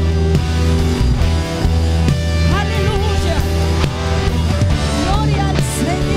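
Loud worship music from a band with electric guitar and drums, with voices singing a gliding melody over it.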